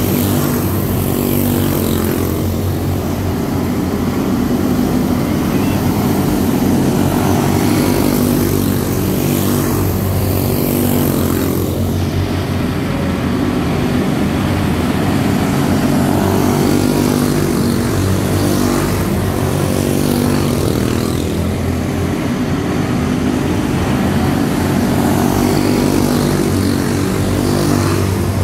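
A pack of quarter midget race cars with Briggs & Stratton Animal single-cylinder four-stroke engines racing, several engine notes overlapping in one steady buzz whose pitch drifts slightly as the cars lap.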